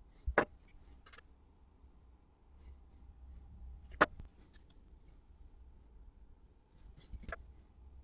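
Small sharp clicks and taps of a soldering iron and fine wire being worked on a circuit board. A double click comes at the start, the sharpest tap about four seconds in and two more near the end, with faint handling rustle between.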